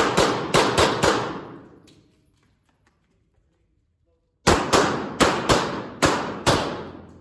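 Glock 26 9mm pistol firing two quick strings: about five shots at the start, then after a pause of about three seconds about seven more. Each shot rings on in the echo of an indoor concrete range.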